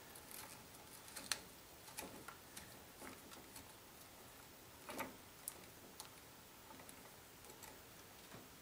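Faint, irregular small clicks and ticks from twisting a plastic wire nut onto two black wires by hand.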